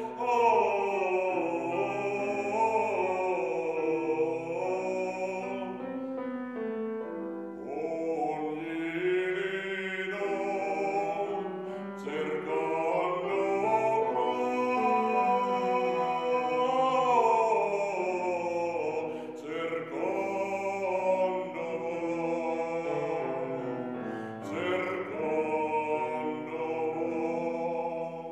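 A man singing in classical operatic style, in Italian, with vibrato, accompanied by a grand piano. About a fifth of the way in the voice stops for a couple of seconds while the piano plays on, then the singing resumes.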